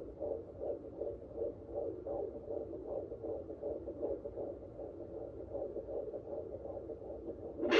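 Fetal heartbeat picked up by a handheld pocket fetal Doppler and played through its speaker: fast, even whooshing pulses, about two and a half beats a second. A sharp click near the end.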